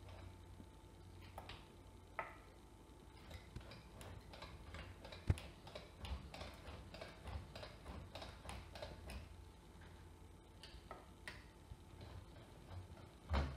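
Kitchen knife making repeated cutting strokes on an end-grain acacia chopping board, each stroke a light click of the blade on the wood, about two or three a second and slightly irregular. One click about five seconds in is louder than the rest.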